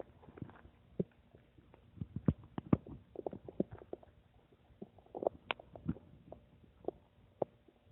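Human stomach rumbling and gurgling: irregular short pops and squelches, thickest about two to three seconds in and again around five seconds.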